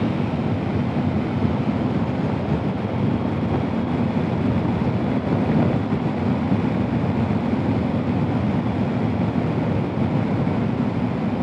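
Steady wind rush over the microphone with the even drone of a Honda ST1300 Pan European touring motorcycle cruising at road speed.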